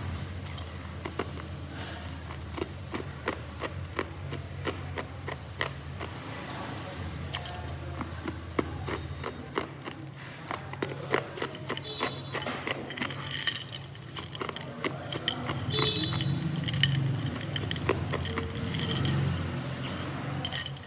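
Hard ice being bitten and chewed close to the microphone: a long run of sharp, irregular cracks and crunches.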